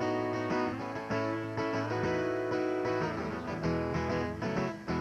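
Acoustic guitar strummed live, with a hand drum keeping a steady beat, in a song's instrumental passage.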